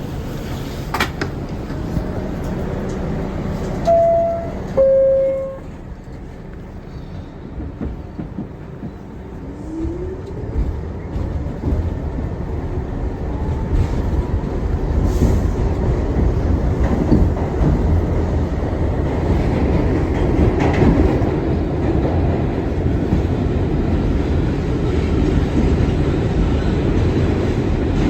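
A falling two-note chime about four seconds in, then an R62 subway train pulls away. A motor whine rises as it speeds up, and the wheels rumble and clack on the rails, growing louder toward the end.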